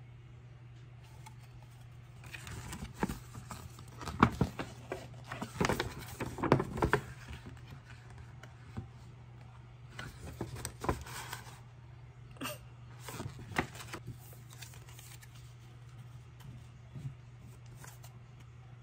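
Paper album inserts being handled and unfolded: a folded paper poster and cards rustling and crinkling in irregular bursts, loudest a few seconds in, over a low steady hum.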